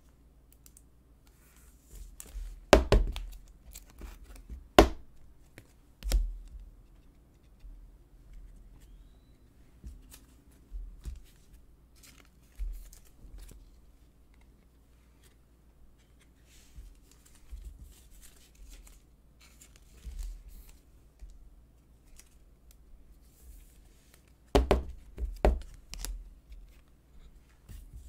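Hands handling and stacking Panini Prizm trading cards on a tabletop: scattered light taps, slides and rustles, with sharp knocks about three and five seconds in and a cluster of them near the end.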